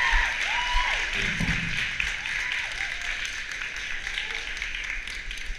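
Audience applause with some cheering, a few shouts rising and falling in the first second or so, the clapping gradually dying down.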